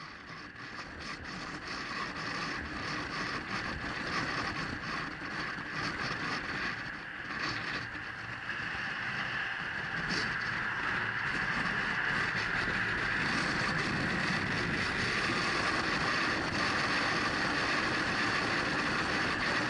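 Ride noise aboard a 2004 Honda SilverWing 600 scooter at highway speed: a steady rush of wind, road and engine noise that builds over the first several seconds, then holds even.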